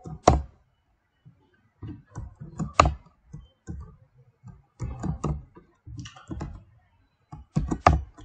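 Computer keyboard keystrokes in short bursts with pauses, three strikes much louder than the rest.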